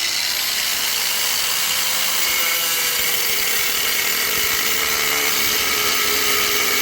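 Power tool with an abrasive cutting disc cutting through a blank-gun revolver's steel barrel: a steady, loud grinding hiss, the disc working through very hard metal inside the barrel.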